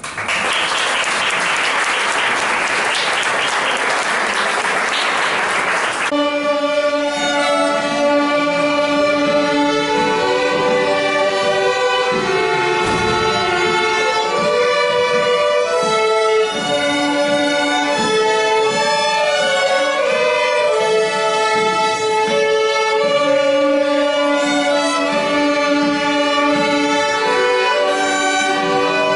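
Audience applause for about six seconds, then a youth string orchestra of violins and other bowed strings starts playing a classical piece in sustained, overlapping notes.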